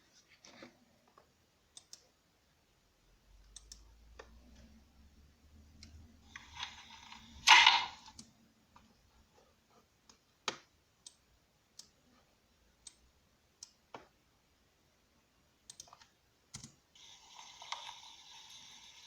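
Scattered sharp clicks, like a computer keyboard and mouse being used, with a louder knock of handling noise about seven and a half seconds in.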